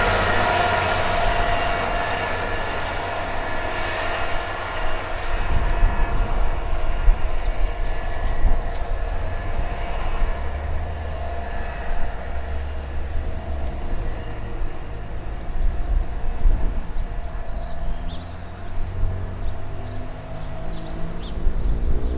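Diesel engine of a yellow self-propelled track maintenance machine running as it moves away along the line, loud at first and fading over the first few seconds, then fainter over a steady low rumble.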